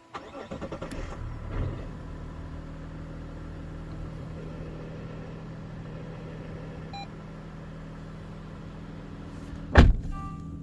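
Mazda CX-60 driving, heard from inside the cabin: a quick run of regular pulses in the first two seconds, then a steady low drone of engine and road. A single sharp thump stands out near the end.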